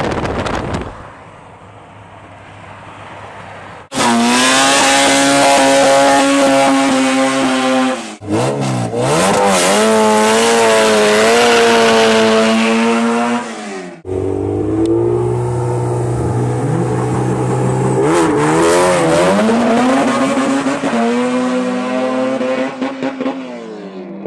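Honda CRX's engine revving hard at high revs, held steady for a few seconds and then swinging up and down in pitch. The sound cuts abruptly between clips several times.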